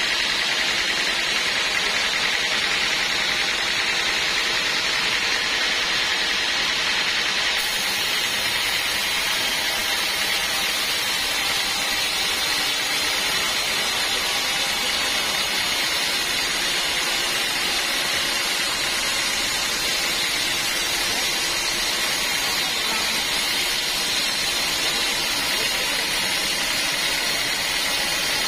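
Band sawmill running steadily: an even, loud hissing whine of the saw and its motor that carries on without a break.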